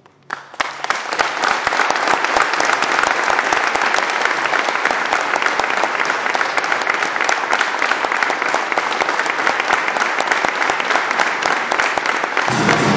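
Audience applauding steadily, a dense patter of many hands clapping that starts about half a second in; near the end music starts up under the clapping.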